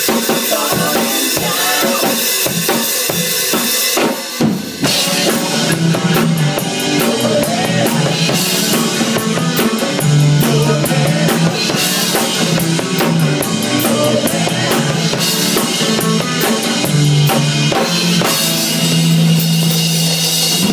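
A band playing at full volume, heard from right beside the drum kit: drums and cymbals loudest, with a short break a little over four seconds in, after which low held bass notes run under the beat.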